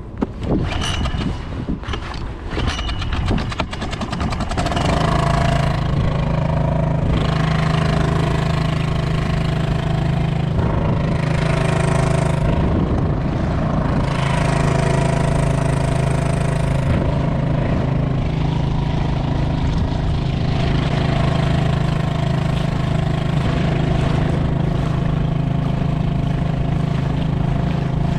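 Honda 2.3 hp four-stroke outboard motor being pull-started: a few seconds of cord pulls and rattles, then the engine catches about five seconds in and runs steadily, pushing the kayak along.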